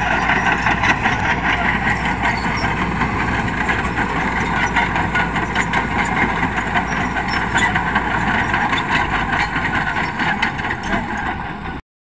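Komatsu D85 crawler bulldozer working, its diesel engine running steadily under a dense clatter of the steel tracks. The sound cuts off abruptly near the end.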